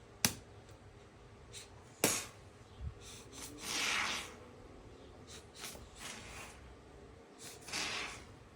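Short hissing spurts of expanding foam sprayed from an aerosol can, the longest about a second long, after two sharp clicks early on.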